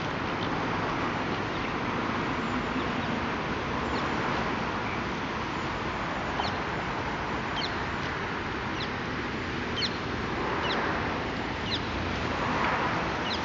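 Mute swans, adults and grey-brown juveniles, feeding at close range, with short high falling peeps every second or so over a steady hiss.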